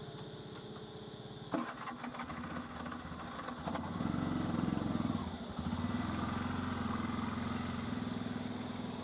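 An engine starts with a sharp clatter about a second and a half in, then runs steadily with a low, even hum.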